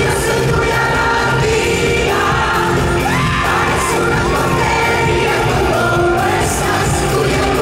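Live pop song played loud through a concert PA: a woman singing into a handheld microphone over a band with keyboards, guitar and a steady beat.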